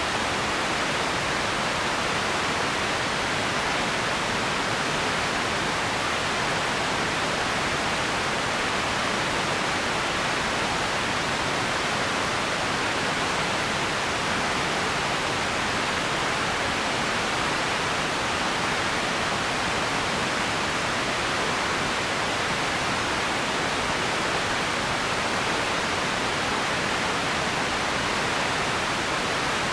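A steady, even hiss that does not change, strongest in the middle range and thin in the deep lows: an empty-ambience noise bed close to pink noise.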